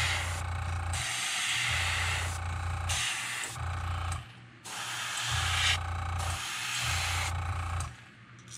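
Airbrush spraying at about 21 psi in repeated bursts of air hiss, each about a second long, with a low hum that comes and goes between them. The spraying stops shortly before the end.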